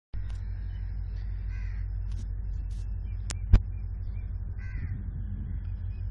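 Crows cawing twice over a low steady rumble, with two sharp clicks about three and a half seconds in.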